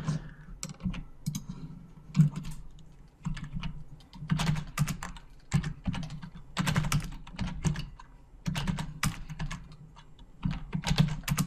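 Computer keyboard keys being tapped: several clusters of quick clicks with short pauses between them.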